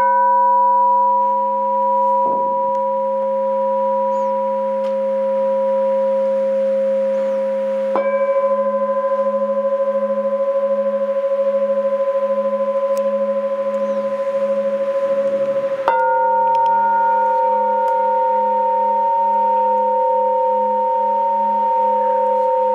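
Alchemy crystal singing bowls ringing in long, steady tones, each sound holding at least two notes at once, with a slow pulsing wobble in the lowest tone. The notes change with a light tap about 8 seconds in and again near 16 seconds.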